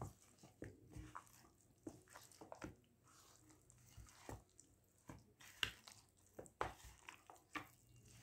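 Faint, irregular squelching of a hand kneading chicken pieces into a thick, wet marinade of curd, gram flour and cornflour in a bowl.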